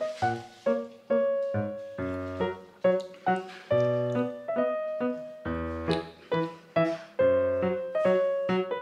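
Background piano music: a light melody of separately struck notes, each fading away, about two or three notes a second.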